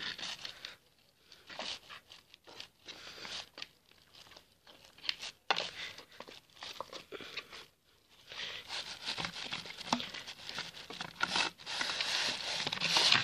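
Thick flour-and-water dog mash (yal) being stirred with a stick in a pan, making irregular squelching and scraping noises as the extra flour firms it up. The stirring is sparse at first and more continuous in the second half.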